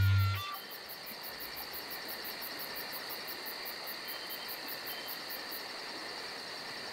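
Night-time insect chorus: crickets chirping in a steady, rapid pulse of about four or five a second over a constant high whine. A music note cuts off about half a second in.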